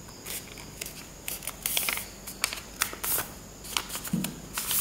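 Sheet of A4 paper being folded and creased by hand: quick rustles and sharp crinkling ticks, with louder crisp rustles about halfway through and again near the end.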